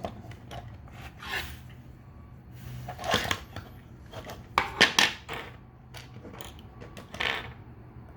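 Plastic parts and accessories of a Transformers Masterpiece MP-30 Ratchet figure being handled: scattered small clicks and knocks, the loudest a quick cluster about five seconds in.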